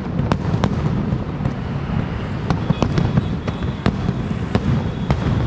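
Aerial shell fireworks going off: an irregular run of sharp pops and crackles, two or three a second, over a continuous low rumble.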